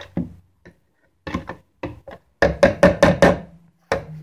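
Metal spoon knocking against the inside of a plastic jar while stirring borax into water: a few separate knocks, then a quick run of about half a dozen in the middle.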